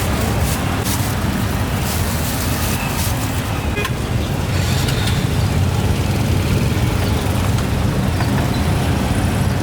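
Steady road traffic from passing vehicles: a continuous low rumble of engines and tyres, with faint clicks and clatter above it.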